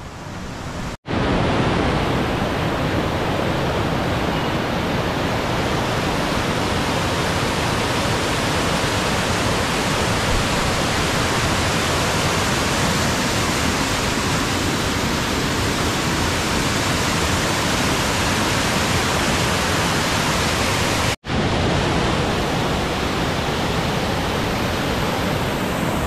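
Kilkila waterfall rushing over sandstone ledges in full, muddy flow: a loud, steady wash of falling water. It breaks off for an instant twice, about a second in and near the end.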